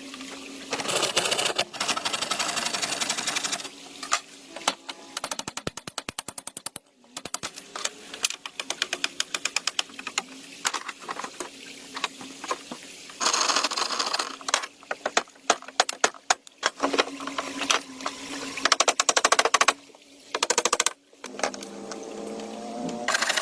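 Rapid runs of sharp clicks and knocks, some very fast, alternating with stretches of rasping noise.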